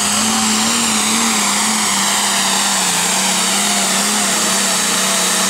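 International Harvester hot farm pulling tractor's diesel engine running flat out while dragging a weight-transfer sled, its exhaust blaring from the open stack. The engine note holds steady at high revs, wavering slightly in pitch under the load.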